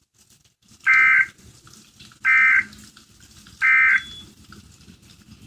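Emergency Alert System end-of-message data burst: three short, identical two-tone digital squawks about a second and a half apart, over a faint hiss, marking the end of the alert broadcast.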